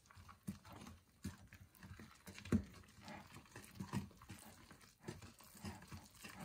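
Wooden spoon stirring thick pancake batter in a glass mixing bowl. The spoon knocks against the bowl at irregular moments, loudest about two and a half seconds in.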